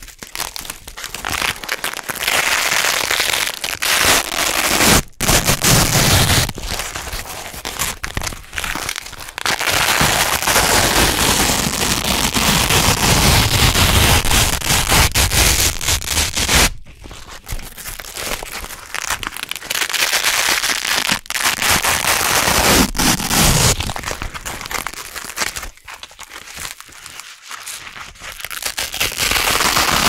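Hook-and-loop (Velcro) tape being slowly peeled apart, a long, dense crackling rip repeated pull after pull, with brief breaks between pulls and a quieter stretch near the end.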